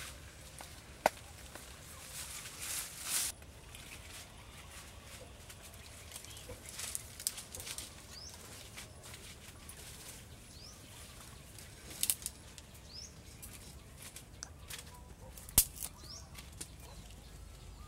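Leafy branches and twigs rustling as they are handled and laid in place, in short bursts, with a few sharp twig snaps. Faint bird chirps now and then.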